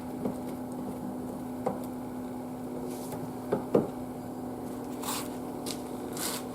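A few scattered light clicks and knocks from the aluminium clamping tools of an EasyWeld 110 butt fusion welder being loosened to free the welded plastic bars, over a steady low hum.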